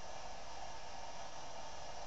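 Steady rushing noise inside an aircraft cabin in flight, even and unbroken.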